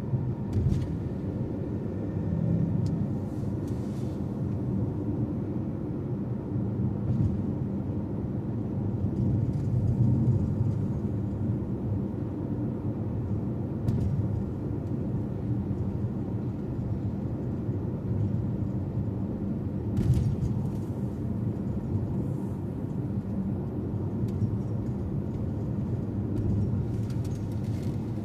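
A car driving along: a steady low drone of engine and road noise, with a few light knocks, the loudest about twenty seconds in.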